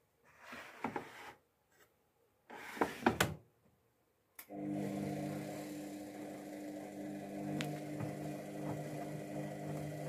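Two brief noisy sounds, then a click about four and a half seconds in, after which the Luxor WM 1042 washing machine starts a steady hum: the start of its Cotton 40°C cycle.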